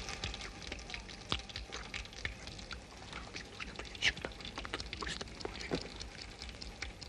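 A dense run of small crackling clicks from the film's sound-effects track, with a few sharper clicks about a second in and around four seconds, and a brief falling squelch near six seconds.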